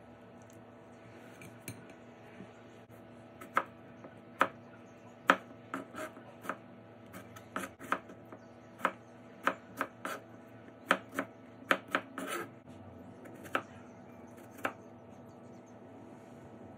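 Kitchen knife cutting fresh strawberries on a plastic cutting board: a run of sharp, irregular taps as the blade meets the board, roughly one or two a second, starting a few seconds in and stopping shortly before the end, over a faint steady hum.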